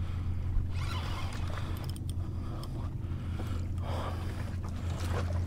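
Spinning reel being worked against a hooked fish, giving a rasping, zipper-like sound, over a steady low rumble. Water washes and splashes over the jetty rocks about a second in, around four seconds in, and again near the end.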